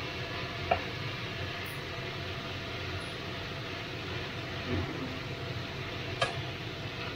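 Spaghetti with bell peppers and chicken sizzling in a frying pan while it is tossed with tongs, with two sharp clicks of the tongs against the pan, one about a second in and one near the end.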